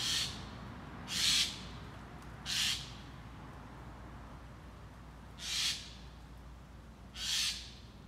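Eurasian magpie giving five short, harsh calls, each under half a second, spaced a second or more apart.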